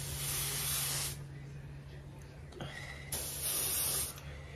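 Small air-fed paint spray gun spraying Cerakote air-dry paint in two short hissing bursts, one at the start lasting about a second and another about three seconds in.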